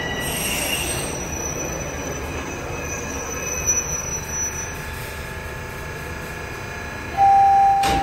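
TTC subway train at a station platform: a steady low rumble with high steady whining tones from the train. About seven seconds in, a loud steady beep sounds for about a second and ends with a sharp click.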